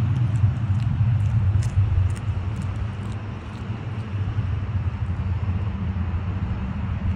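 Low, steady rumble of road traffic, a little louder in the first few seconds, with faint light ticks over it.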